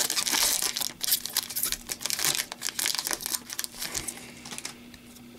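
Foil wrapper of an Upper Deck hockey card pack crinkling and tearing as it is opened by hand. The rustling dies down after about four seconds.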